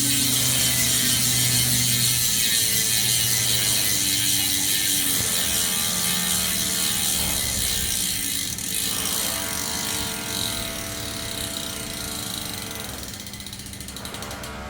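Freehub of a Possible carbon MTB wheel ratcheting as the wheel spins freely: a dense, loud buzz of pawl clicks that slowly fades as the wheel slows.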